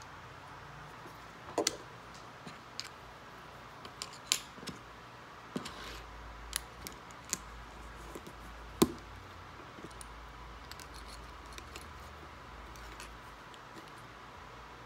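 Small plastic LEGO pieces clicking and tapping as they are picked up and handled on a wooden tabletop, in scattered sharp clicks, the loudest a little after the start and about nine seconds in.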